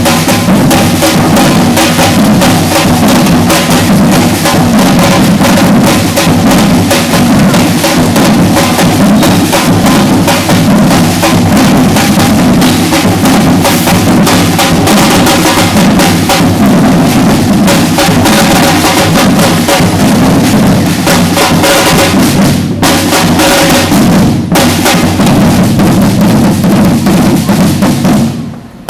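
Batucada percussion ensemble playing a loud, dense drum groove of bass drums and snares. The playing drops out briefly near the end.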